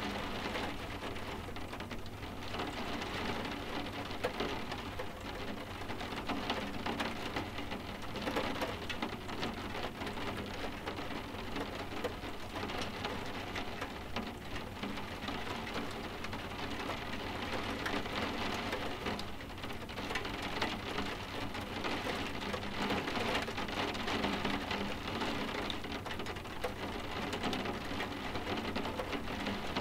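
Steady soft rain, with many small drops tapping densely on windows.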